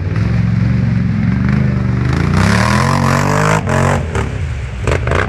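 4x4 ATV quad bike engine revving hard as its wheels spin in mud. The engine pitch climbs steadily over about a second and a half, drops off sharply, and is then followed by a few short, sharp bursts.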